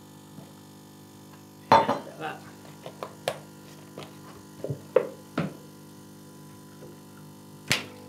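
Kitchen handling sounds: a knock with a short ring about two seconds in as the stainless steel milk jug is set down on the counter, then scattered light taps and clicks from handling the milk carton, and a click near the end as a switch on the espresso machine is flicked.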